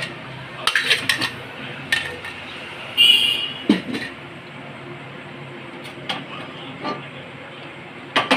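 A few sharp knocks and clinks of kitchen utensils against cookware, with a short high ringing clink about three seconds in, over a steady low background hum.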